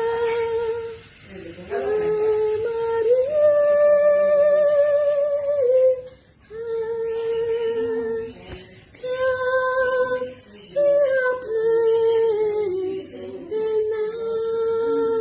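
A high voice humming a slow, unaccompanied melody: long held notes with vibrato, a few seconds each, separated by short pauses.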